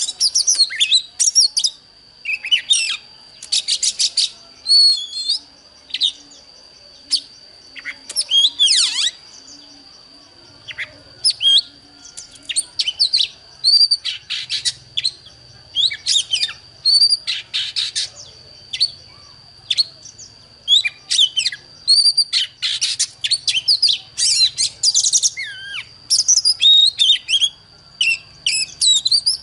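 Oriental magpie-robin song: fast, varied phrases of whistles, chirps, trills and pitch sweeps, one after another, with a steady high-pitched tone held underneath.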